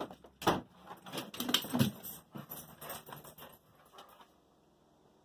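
Clicks, knocks and jingling from a door being opened and a dog moving about, dying away about four seconds in.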